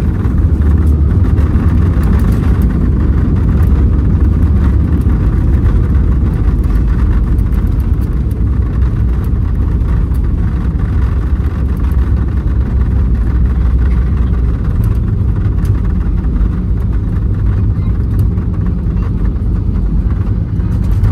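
Airbus A320 on its landing rollout, heard inside the cabin: a steady, loud rumble of engines and wheels on the runway. It is strongest over the first several seconds and eases slightly as the aircraft slows.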